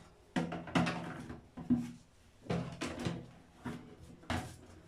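Plastic bottles being set down and knocked into the plastic baskets of a shower caddy: a string of about seven sharp knocks and clunks.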